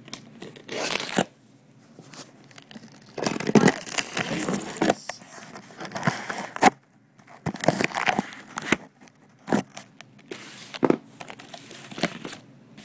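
Cardboard box being torn and pried open by hand: irregular ripping and rustling with sharp clicks and knocks, and crinkling of the packaging.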